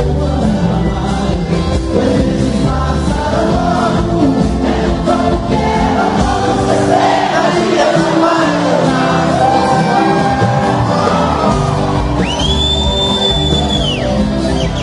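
Live sertanejo band performance: male singing over guitar and band, with the bass dropping away for a couple of seconds midway. Near the end a steady high tone holds for about two seconds.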